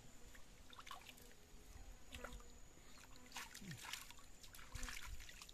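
Faint trickle of river water running over rocks, with scattered small clicks and knocks.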